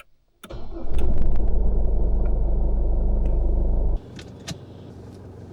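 A motor vehicle running, a steady low rumble of engine and road noise that drops off sharply about four seconds in to a quieter steady run.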